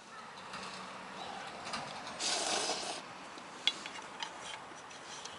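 Someone eating noodles from a metal camp pot: a short noisy slurp about two seconds in, then a few light clicks of a utensil against the pot.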